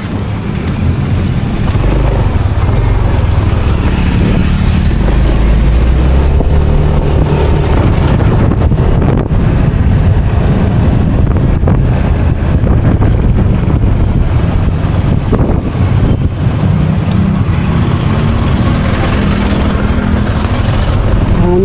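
Motorcycle riding through town: its engine running under a loud, low rumble of wind buffeting the microphone.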